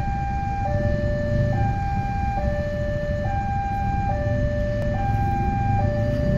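Railway level-crossing warning alarm sounding a steady two-tone hi-lo pattern, the higher and lower notes alternating a little under a second each, over a low rumble.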